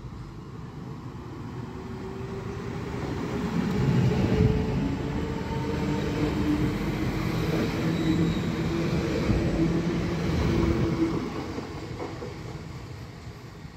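DB Regio electric multiple unit passing along the platform. It grows louder as it approaches, is loudest with a steady hum and a few pitched electric-drive tones as the cars go by, then fades as it moves away.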